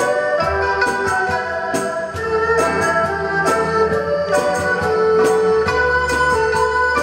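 Live small orchestra playing a melody, with held notes from strings and winds over a steady beat of sharp strokes.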